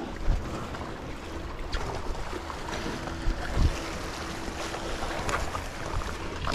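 Sea waves washing against shoreline rocks, with wind buffeting the microphone and a few light knocks and scuffs of footsteps on rock.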